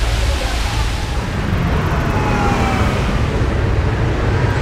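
Wind buffeting the camera's microphone: a loud, steady low rumble with hiss over it.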